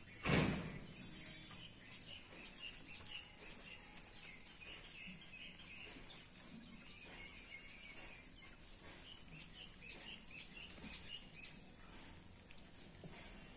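Faint small birds chirping in quick runs of short notes, with one sharp thump just after the start.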